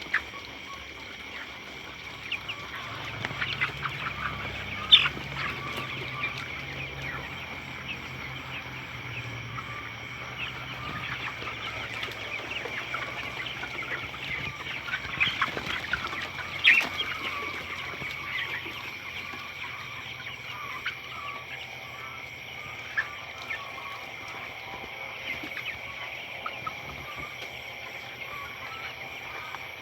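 A flock of broiler chickens clucking and peeping, many short calls over a steady high-pitched drone. A few sharp clicks or knocks stand out, the loudest about 5 and 17 seconds in.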